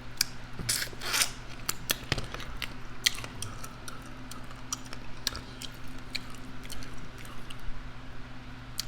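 Close-up chewing and lip-smacking while eating hot wings: irregular wet clicks and smacks, a few every second, over a steady low hum.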